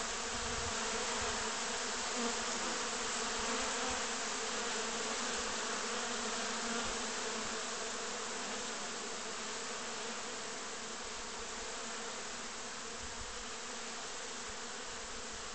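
Many honeybees flying around the entrances of wooden hives, a dense, steady buzzing hum.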